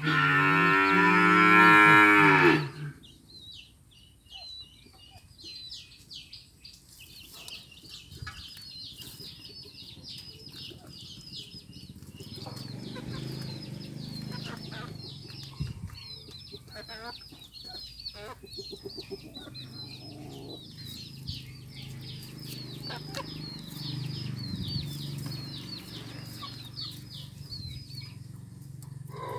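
A cow moos once, long and loud, in the first couple of seconds. After it, rapid high chirping of small birds runs on over a low steady hum.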